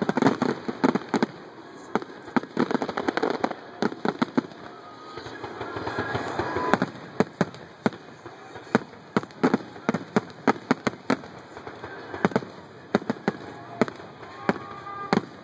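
Fireworks finale: a rapid barrage of overlapping bangs and booms, with a swell of crackling building about six seconds in before the bangs pick up again.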